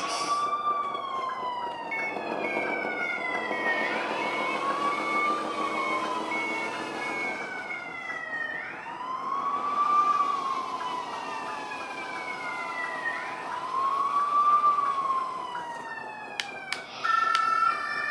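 Electronic wailing siren from a model fire truck's alarm sound module: four slow rise-and-fall wails about four and a half seconds apart. Near the end a few clicks and a short burst of different stepped tones cut in.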